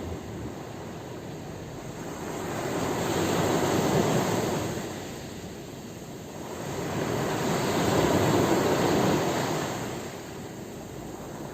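Sea waves washing in, a rushing noise that swells and fades twice, loudest about four and eight seconds in.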